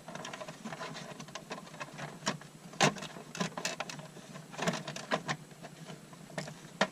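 Plastic steering column cover of a Subaru Legacy/Outback being worked off the column: an irregular string of clicks, taps and knocks from the plastic, with a couple of sharper knocks a few seconds in. The cover tends to stick.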